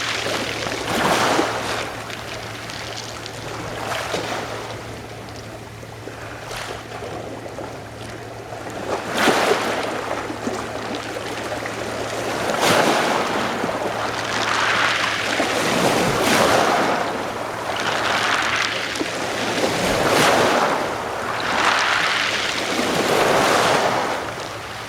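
Sea waves washing and breaking against the shore, in repeated surges every second or two, some ending in a sharper splash.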